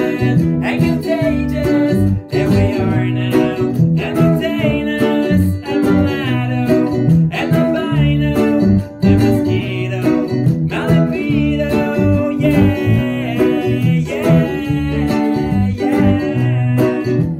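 Ukulele strummed, playing a steady run of chords.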